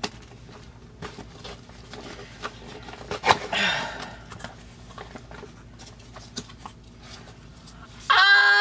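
Rustling and small clicks of a package being handled and opened, with a louder click and a short rustling burst about three seconds in. Near the end a woman lets out a long, loud exclaimed 'ooh' that holds and then slides down in pitch.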